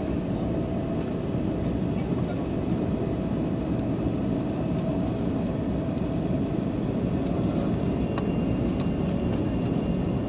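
Steady, heavy noise of a passenger jet, strongest in the low end, with scattered faint clicks and a thin high whine in the last couple of seconds.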